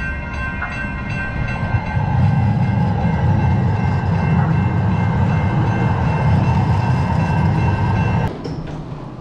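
A vehicle running: a heavy low rumble with several steady high tones over it, the rumble growing louder about two seconds in, then cutting off abruptly near the end.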